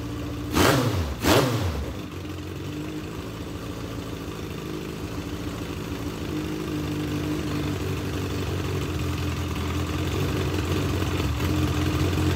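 Legends race car engine running, blipped twice near the start, each rev falling straight back, then idling steadily; its carburetors are flooding with fuel.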